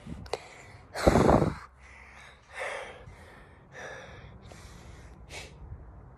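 A person breathing hard and gasping close to a phone's microphone. The loudest, longest breath comes about a second in, followed by several shorter puffs of breath.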